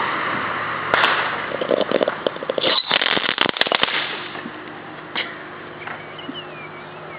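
Firecrackers going off inside a plastic pig: a hiss, a sharp bang about a second in, then a rapid string of crackling pops for about three seconds. One more pop comes near the fifth second before it dies down.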